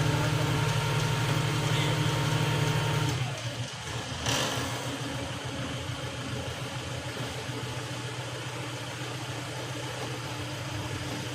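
An engine running steadily. It drops in level a little over three seconds in, with a single knock about a second later.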